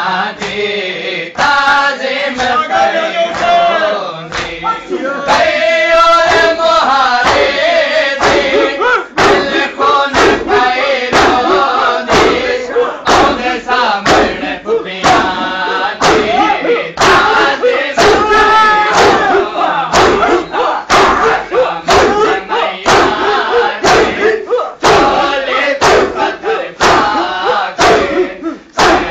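A crowd of male mourners chanting a noha loudly in unison while beating their chests in matam, the open-hand slaps on bare chests landing in a steady beat that grows more prominent partway through.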